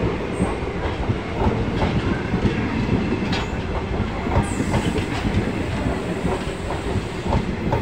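Rumble and clickety-clack of train wheels on rails as an express train's coaches pass close alongside on the next track, with rapid, irregular clicks from the wheels over the rail joints.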